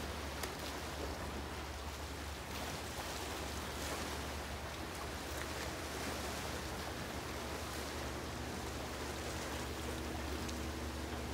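Steady wash of sea surf against a rocky shore. A faint low hum comes in near the end.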